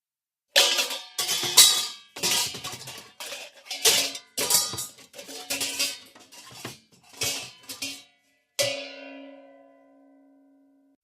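Cartoon-style pots and pans clattering: a rapid run of metallic clangs and crashes that starts about half a second in, then after a short pause one last clang that rings on and slowly fades.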